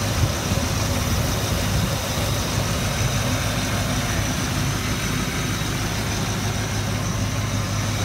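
Land Rover Discovery II's V8 petrol engine idling steadily, running with a suspected vacuum leak.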